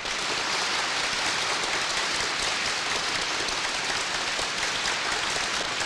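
Large audience applauding, a dense, steady clapping of many hands.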